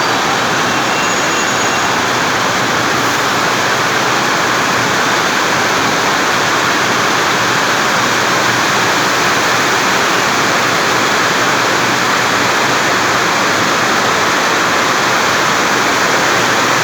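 Heavy rain falling, a steady loud hiss with no let-up.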